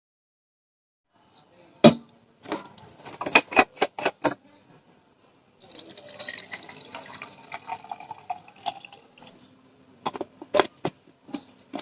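Sharp clicks and knocks from handling the bottle, then about four seconds of water pouring into the Zebronics Zeb Rover speaker bottle, followed by more clicks and knocks near the end.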